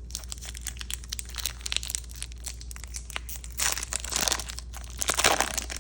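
A trading-card pack wrapper being crinkled and torn open by hand, with steady crackling and two louder crinkling rips near the end.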